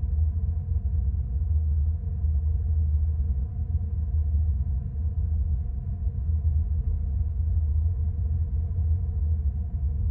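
Anime soundtrack: a steady low rumbling drone with faint held tones above it.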